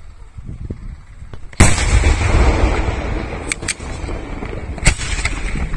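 Aerial firework shell bursting with one sudden loud bang about a second and a half in, which rolls on as a long low rumble. A few sharper cracks follow in the second half.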